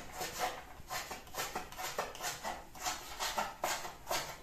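Kitchen knife chopping on a wooden cutting board: a run of short knocks, about two to three strokes a second.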